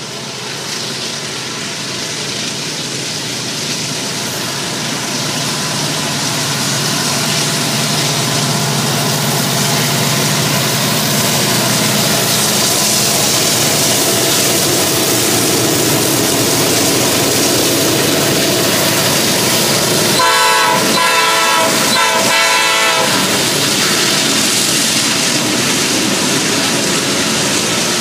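Norfolk Southern diesel freight train approaching and passing close by, its locomotive engine and rolling wheel noise growing steadily louder over the first ten seconds or so. About twenty seconds in, the locomotive's air horn sounds two blasts, then the hopper cars keep rumbling past.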